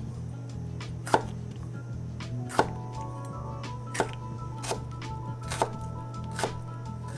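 Chef's knife chopping a deseeded tomato on a wooden cutting board: about six sharp knocks of the blade on the board, roughly one a second, with steady background music underneath.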